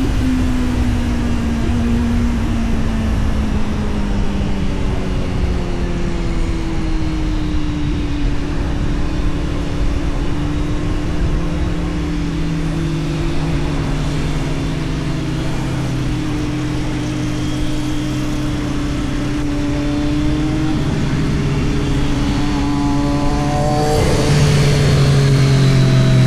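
Kawasaki Z900's inline-four engine and full exhaust under way. The engine note falls away over the first several seconds and settles into a steady cruise, then climbs again near the end as the bike accelerates.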